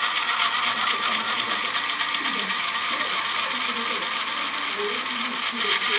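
Model locomotive's DCC sound decoder playing its engine sound through a small speaker as a steady, fast rattling buzz. The decoder is partly faulty, so the engine sound comes out wrong.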